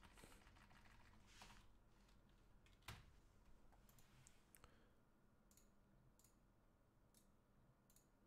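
Near silence with faint, scattered clicks of a computer keyboard and mouse, a single louder click about three seconds in.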